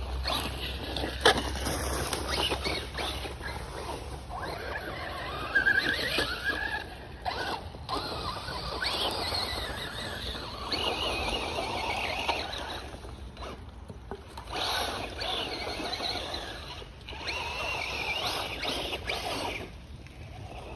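FTX DR8 1/8-scale brushless electric RC truck driven in repeated bursts of throttle over dirt and leaf litter: motor and drivetrain whine rising and falling, with the tyres scrabbling at each burst. A sharp knock about a second in.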